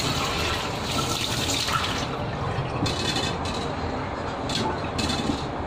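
A steady rushing noise throughout, with a few short taps and rustles near the middle and end as bell peppers are torn open and seeded by hand.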